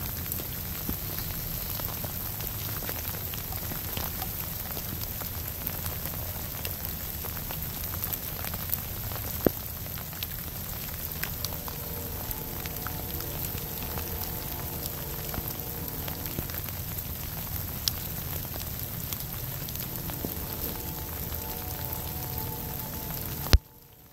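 Steady rain falling, with many small drop ticks scattered through it. Near the end comes one sharp knock, after which the sound cuts off suddenly.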